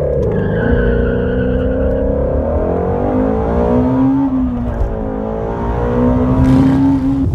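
A performance car's engine on launch control, revs held high and wavering, then climbing in pitch as the car pulls away. The sound cuts off suddenly at the end.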